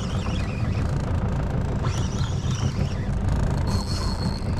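Small fishing boat's outboard motor running steadily, a low rumble, with a thin high whine briefly near the end.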